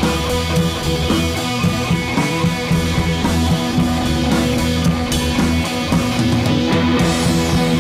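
Background rock music with guitar, played over the footage.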